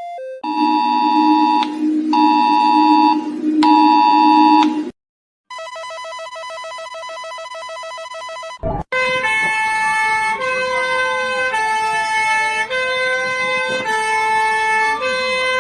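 Synthesized emergency alert system alarm tones. First come three long two-tone electronic beeps over a steady low drone. After a short break there is a steady buzzing tone, then a siren tone sweeping up and down over held electronic notes.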